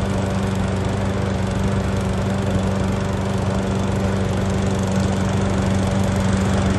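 Petrol lawn mower engine running steadily at a constant speed.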